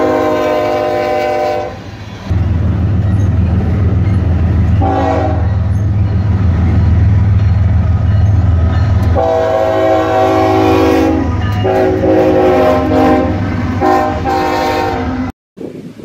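Norfolk Southern diesel freight train passing with a loud low rumble of engines and rolling cars while a multi-chime locomotive air horn sounds. There is a long blast at the start, one short blast about five seconds in, and a run of four blasts in the second half. The sound cuts off abruptly for a moment near the end.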